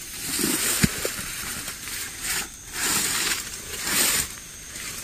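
Leaves and stems rustling and crackling in several bursts as someone pushes through dense undergrowth, with one sharp snap about a second in.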